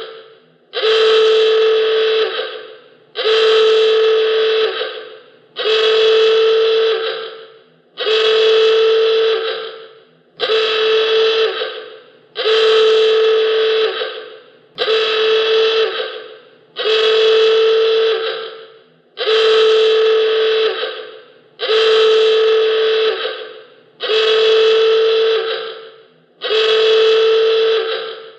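Alarm klaxon sounding in repeated long honking blasts, about one every two seconds. Each blast starts abruptly on a steady pitch and dies away before the next.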